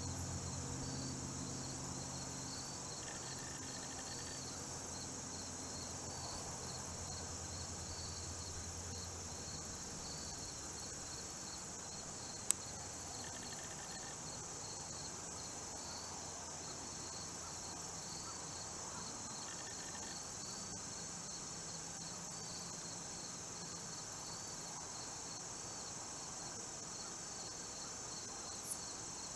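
Steady high-pitched chorus of crickets and other insects, with a pulsing trill under a continuous buzz. A low hum fades out about ten seconds in, and two sharp clicks sound, one about twelve seconds in and one near the end.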